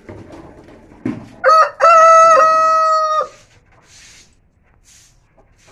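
Rooster crowing once, a loud cock-a-doodle-doo: a short first note, then a longer part ending in a long held note.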